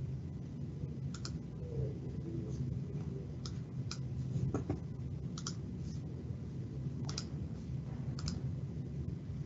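Scattered clicks of a computer mouse, about eight to ten at irregular intervals, some in quick pairs, as a presentation is opened for screen sharing. A steady low room hum runs underneath.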